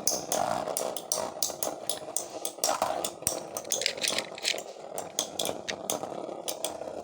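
Two Beyblade spinning tops whirring as they spin together, with many sharp irregular clicks as they knock against each other and the stadium.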